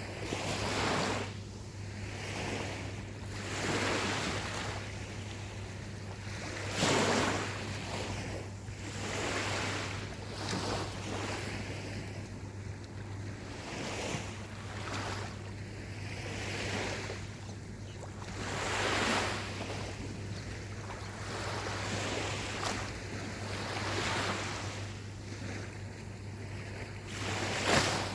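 Small ocean waves breaking and washing onto a beach, a rushing surge every few seconds, with the strongest breakers about seven seconds in and just before the end. A steady low hum runs underneath.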